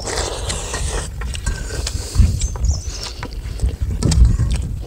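Wind buffeting the microphone in uneven gusts, with close-up eating sounds: chewing and small clicks of hands and food on steel plates.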